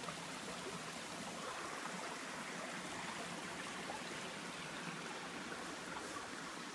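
Small rocky creek trickling and flowing steadily over stones.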